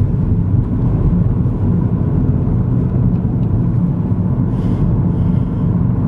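Steady low rumble of a car driving along a road, engine and tyre noise heard from inside the cabin.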